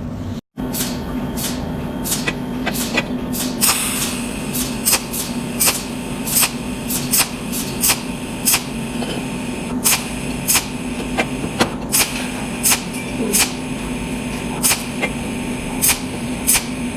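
Cold welding machine firing pulse after pulse, a sharp snap with each weld spot, roughly one to two a second, over a steady hum.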